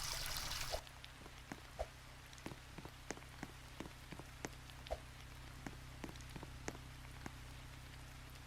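Water pouring that cuts off abruptly just under a second in, then faint, irregular drips and small ticks, several a second.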